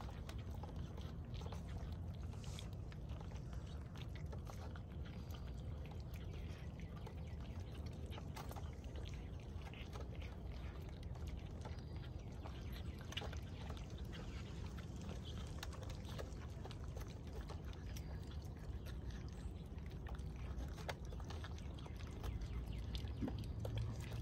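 Several German Shepherd puppies crunching dry kibble from a metal tray: many small, irregular crunches and clicks of the pellets, over a steady low background rumble.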